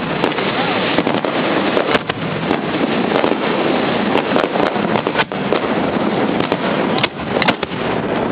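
Fireworks display in full swing: a dense, continuous barrage of shells bursting, with many sharp bangs and crackles over a steady rumbling roar.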